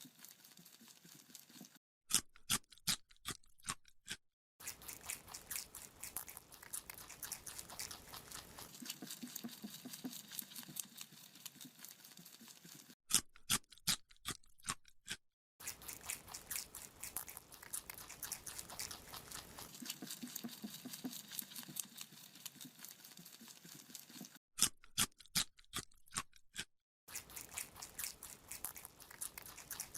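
Rabbit chewing a carrot: fast, steady crunching and nibbling, broken three times by a few seconds of louder, sharper crunches.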